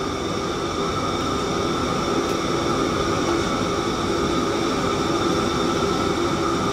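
Steady roar of a commercial kitchen range: a high-pressure gas wok burner running under a large wok, together with the exhaust hood fan, with several steady high whines over the noise.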